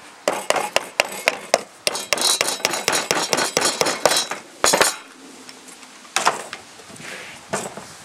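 Hammer driving a nail into a 1-inch pine board: a quick run of sharp blows, about three or four a second, for the first five seconds. The blows stop after that, with two more single knocks later.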